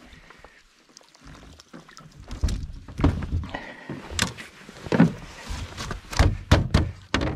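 Irregular knocks and thumps against a small boat's hull as a gillnet with caught perch is pulled aboard and the fish are handled. It starts softly, and the thumps come harder and closer together from about two seconds in.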